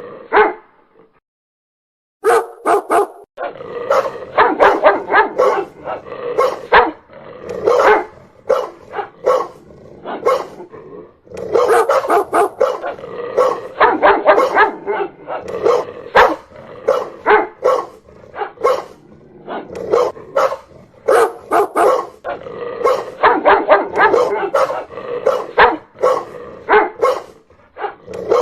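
A dog barking loudly in rapid, repeated volleys of barks, with a short break about a second in.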